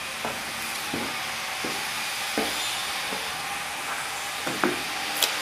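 Footsteps climbing a concrete staircase, a soft knock about every three-quarters of a second, over a steady hiss, with a sharper click near the end.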